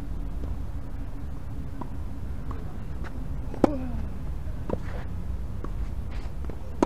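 Sharp knocks of a tennis ball being struck or bouncing, two loud ones about three seconds apart, each with a brief falling ring, plus a few fainter ticks, over a steady low outdoor rumble.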